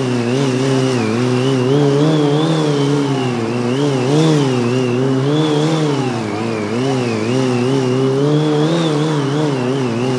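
Sportbike engine running at high revs through a long wheelie, its pitch rising and falling every second or so as the throttle is worked to keep the front wheel up.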